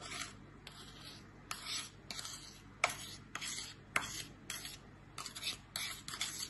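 Metal spoon scraping milk powder out of a cup into a blender jar, in short repeated strokes about two a second.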